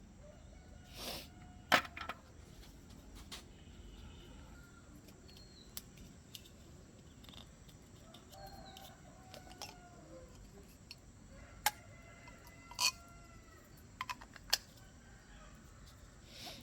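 Chickens calling faintly, with a few drawn-out crows or clucks. Scattered sharp clicks and knocks can be heard among them.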